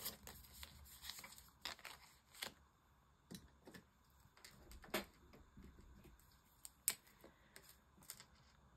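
Faint handling sounds of polymer banknotes being leafed through and slipped into a plastic binder pocket: soft rustles and scattered light clicks, with a sharper tap about seven seconds in.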